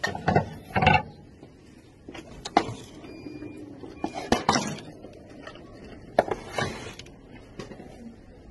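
Wooden serving boards and a tray knocking and clattering against each other and the shelf as they are handled and put back, in a series of irregular knocks, loudest near the start.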